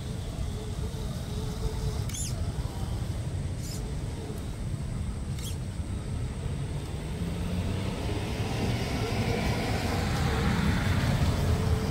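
Scale RC crawler (FMS FJ40 Land Cruiser) driving through tall grass: a faint electric motor and gear whine over a steady low rumble, with the rustle of grass against the truck growing louder toward the end as it comes close.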